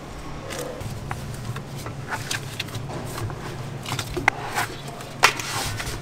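Bagel dough being worked out of a stainless-steel mixer bowl by hand: scattered scrapes, slaps and clicks of the dough and a plastic scraper against the steel, with two sharper knocks about four and five seconds in, over a steady low hum.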